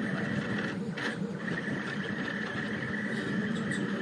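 Rostock delta 3D printer running a print: its stepper motors give a steady high whine over a lower hum, which breaks off briefly twice about a second in as the print head changes its moves.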